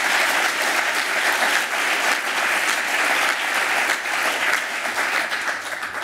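Audience applauding: many hands clapping together in a dense, steady patter that thins in the last second and dies away at the end.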